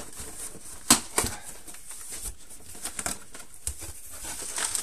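Cardboard shipping box being pulled open by hand, with its flaps and torn packing tape crackling and snapping. A sharp crack about a second in is the loudest.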